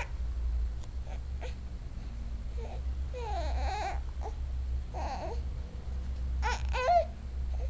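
Baby whining and fussing: a few short, whiny cries whose pitch slides up and down, with pauses between them.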